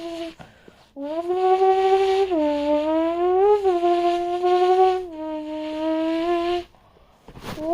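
A person imitating a car engine with their voice: a hummed, buzzing tone that holds steady and then jumps up and down in pitch like an engine revving and shifting gears. It stops briefly about half a second in and again near the end, then starts again.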